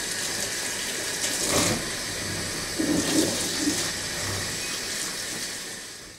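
Water running steadily from a kitchen sink tap sprayer onto a wet cat being rinsed, with some splashing; it fades out near the end.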